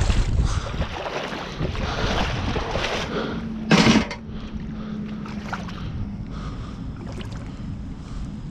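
Water sloshing and rustling as someone moves about in chest waders, then about four seconds in a single loud metallic clank, with a low ring that fades over the next couple of seconds, as a piece of railroad scrap metal is dropped.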